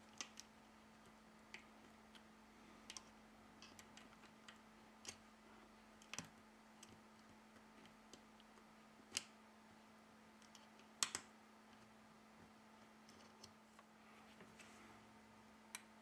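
Faint scattered clicks and taps of metal tweezers handling small parts inside an opened smartphone, about a dozen at irregular intervals, the loudest a little past the middle, over near silence with a faint steady hum.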